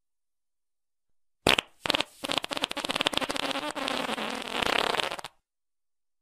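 Cartoon fart sound effect: a short blast about a second and a half in, then a long, rapidly sputtering fart of about three seconds that cuts off suddenly.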